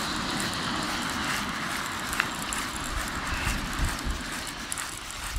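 Strong wind buffeting the microphone: a steady rushing noise with a low, uneven rumble, and a faint click about two seconds in.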